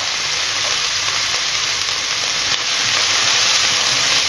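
Diced chicken breast sizzling steadily as it fries in olive oil in a frying pan; the sizzle grows a little louder near the end as the pieces are stirred.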